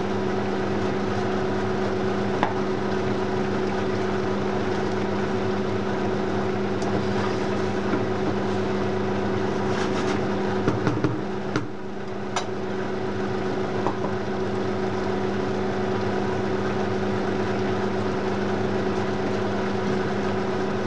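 Steady hum and hiss of a running motor, even throughout, with a few light knocks of a wooden spoon against a cooking pot about ten to twelve seconds in as the sauce is stirred.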